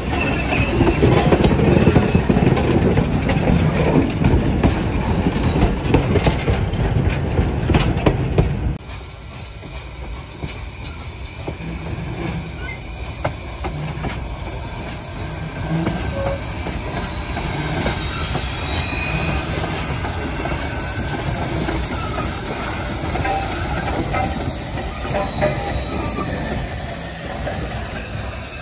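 A train hauled by the Norfolk & Western 611 steam locomotive rolling by. For the first eight or nine seconds there is a loud rumble with clattering, then an abrupt drop to quieter running, with a long high wheel squeal that slowly falls in pitch through the rest.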